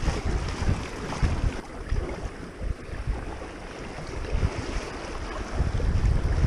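Shallow creek riffles rushing and splashing around an inflatable packraft, with irregular gusts of wind rumble on the microphone.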